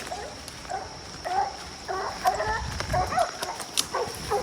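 Coon hound barking repeatedly, a quick string of short barks, with wind rumbling on the microphone about two and a half seconds in.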